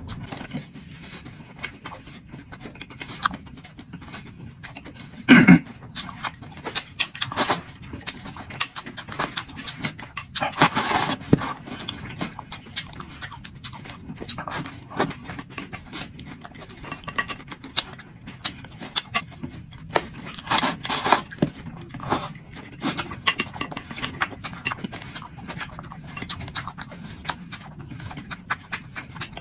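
Close-up eating sounds: a person chewing, with irregular wet mouth clicks and smacks and a few short louder bursts, the loudest about five and a half seconds in.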